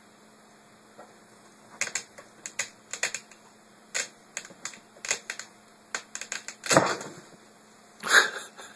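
A cat scrabbling into a storage box: an irregular run of short, sharp crackles and scratches, with a louder thump about two-thirds of the way through and another loud crackle near the end.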